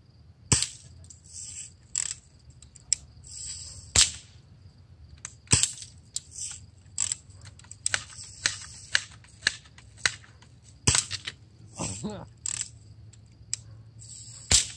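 A BB air gun fires in a series of sharp cracks with BBs striking a glass lava lamp: five loud shots a second to several seconds apart, with softer clicks and rattles between. One hit knocks the last shard off the lamp's broken glass.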